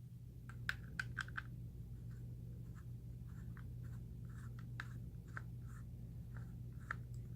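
Small Torx T6 screwdriver turning the screws in a plastic microphone case: faint, irregular scratchy ticks and rasps over a steady low hum.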